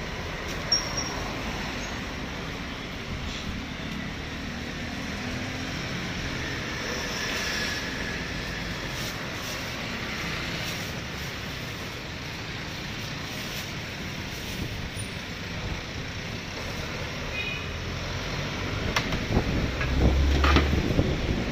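Steady street traffic rumble, with a few metallic knocks and clanks near the end as a large aluminium pot lid is handled.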